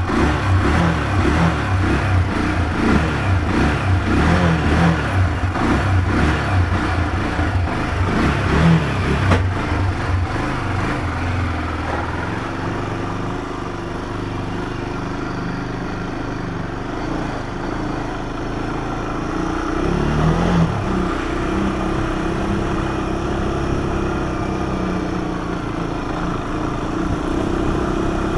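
Honda four-wheeler (ATV) engine running while being ridden, the revs rising and falling during the first half, then quieter and steadier, with a brief rise in revs about two-thirds of the way through.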